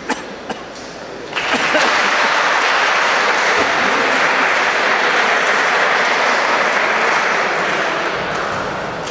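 A crowd applauding. It breaks out about a second and a half in, after two short taps, holds steady, and fades near the end.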